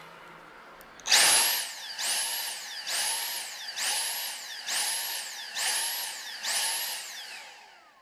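Dyson cordless handheld vacuum's motor starting with the trigger pulled, then pulsing: its whine surges up and drops back about once a second, seven times. This is the on-off "breathing" fault in which it won't hold suction, which in most cases comes from a clogged filter.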